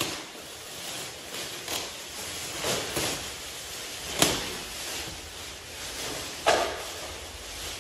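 Clear plastic wrapping film rustling as it is pulled off an upholstered armchair, with several sharper crinkles, the loudest about four seconds in and another near six and a half seconds.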